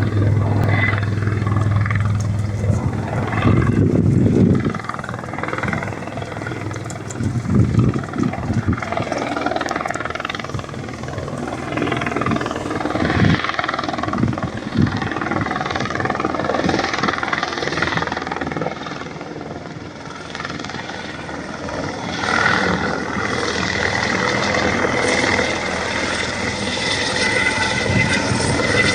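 Helicopter engine and rotor noise, loud and continuous, swelling and easing in level.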